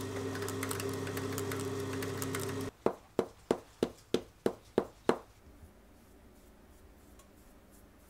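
A small electric machine runs steadily with a fine clicking rattle and cuts off about two and a half seconds in. Then come eight sharp knocks, about three a second, each ringing briefly.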